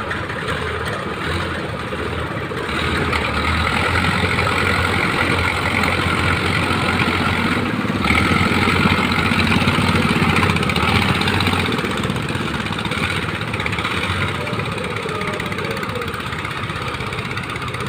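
A fishing boat's engine running steadily. It grows louder about three seconds in and eases off again after about twelve seconds.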